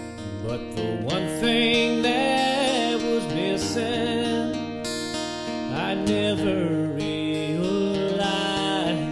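Acoustic guitar strummed and picked, with a man singing over it in long, wavering held notes.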